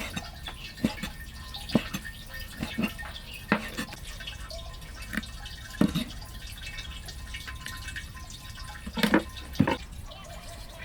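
Irregular single drips of water, a second or more apart, over a low steady background, with two louder drips near the end.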